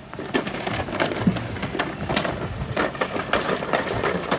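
Hard plastic wheels of two children's ride-on toy bikes rolling over dirt and concrete, a continuous irregular crackle of small clicks and scrapes.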